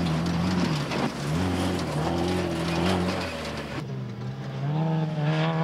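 Off-road dune buggy engines revving hard, the pitch rising and falling as they accelerate over dirt, with a short drop about a second in. From about four seconds in, a steadier engine note climbs slightly and then holds.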